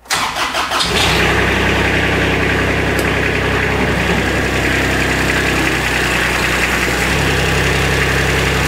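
Kubota RTV utility vehicle's diesel engine cranked by the starter for about a second, then catching and running steadily. Its note changes for a few seconds in the middle while the cargo bed is tipped up, and it shuts off at the end.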